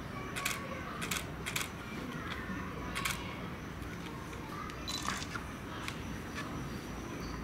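Camera shutter clicks, about six sharp clicks a second or so apart, over a steady low background rumble.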